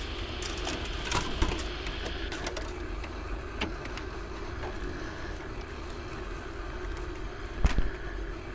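Steady electrical hum and hiss, with a cluster of plastic clicks and knocks about a second in as a videotape cassette is pushed into a VCR, and a single louder thump near the end.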